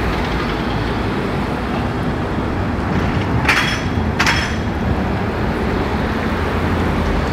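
Street traffic: slow-moving cars, among them a Bentley Continental GTC V8 convertible, running past with a steady low engine and tyre rumble. Two short sharp cracks with a hiss come about three and a half and four seconds in.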